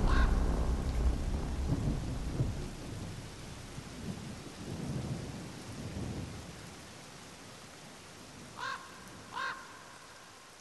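Thunder rumbling and rolling away over steady rain, fading through the first half. Near the end, two short crow caws.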